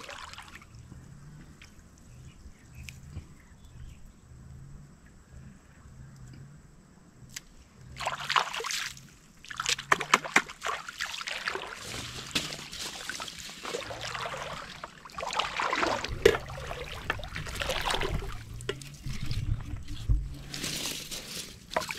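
Shallow floodwater sloshing and trickling as hands work in it to set a baited fishing hook line. It is quiet at first, then turns to busy stirring and splashing from about eight seconds in, over a faint low, regular pulsing.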